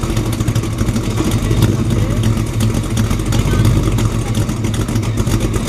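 Chrysler Valiant's engine held at high revs for a burnout, a loud steady run with the rear tyre spinning on the asphalt.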